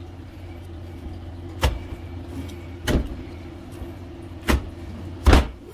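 Four sharp knocks of kitchen utensils, irregularly spaced and the loudest near the end, over a steady low hum.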